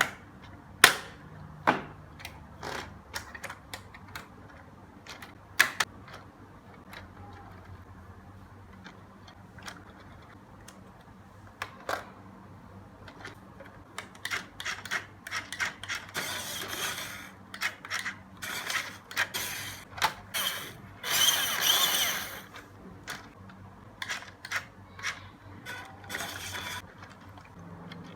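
Unboxing handling noise: scattered clicks and knocks of plastic and cardboard being handled, with bursts of rustling packaging in the second half, loudest about three-quarters of the way through.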